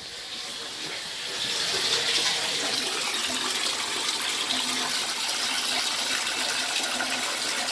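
Water running steadily from a household faucet, growing louder over the first second and a half. The hot water is being run off to empty and cool the water heater tank.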